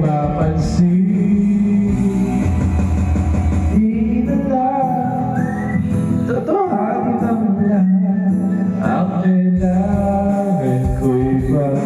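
A rock-style song with a singer over a band led by guitar.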